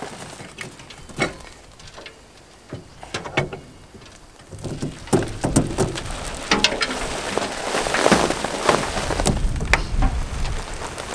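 Loose garden soil pattering and sliding off a pickup's tailgate into a steel tractor loader bucket as a hand-cranked truck bed cargo unloader drags it out, with scattered clicks and knocks. It gets denser and louder about halfway through.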